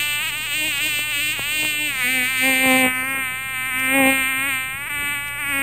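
Insect wings buzzing in flight: one continuous, steady buzz whose pitch wavers slightly up and down.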